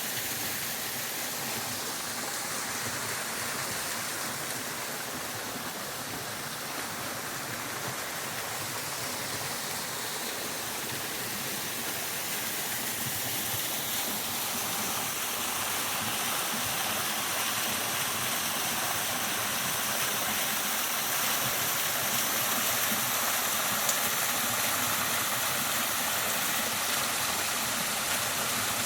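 Waterfall: a steady rush of falling water, growing a little louder partway through.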